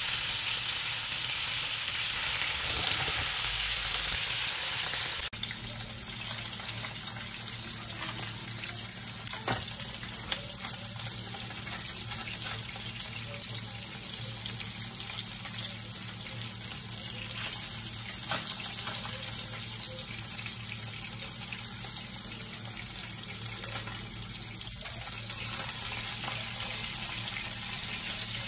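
Fish steaks sizzling as they shallow-fry in a little oil in a frying pan. About five seconds in, the sizzle cuts off suddenly and gives way to a steady hiss over a low hum, with occasional light clicks.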